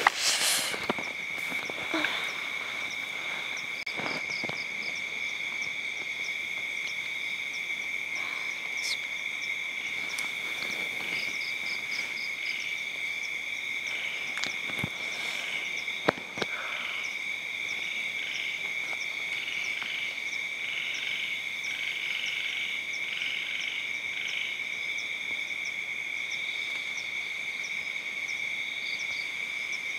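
Night chorus of frogs and insects: continuous high trilling, with pulsed calls over it in the middle. A few sharp knocks sound near the start and about 16 seconds in.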